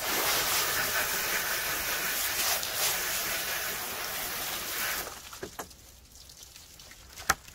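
Garden hose spray nozzle spraying water onto the wooden cleaning table in a steady hiss for about five seconds, washing off fish blood, then shut off. A few light knocks follow, with one sharp knock near the end.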